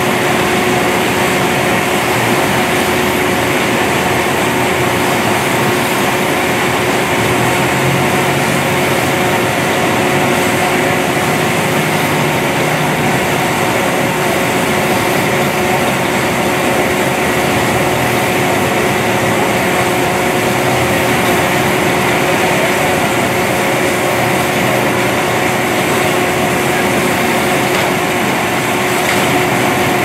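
Maize silage baler-wrapper running steadily while a round bale is wrapped in stretch film: a constant mechanical drone with a steady whine and no breaks.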